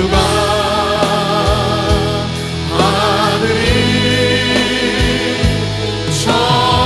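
Worship music: a group singing a Korean praise song over band accompaniment.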